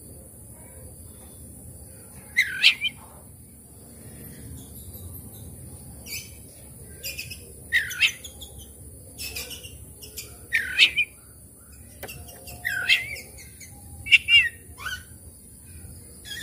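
Oriental magpie-robin giving loud, short whistled notes, singly or in quick pairs every two to three seconds, with softer chirps in between.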